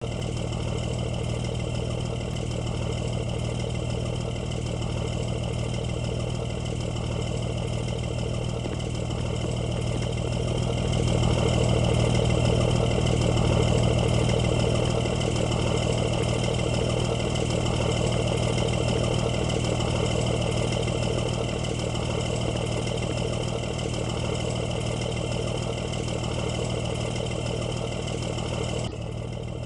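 Bus engine idling steadily, growing louder for a few seconds around the middle and dropping back suddenly near the end.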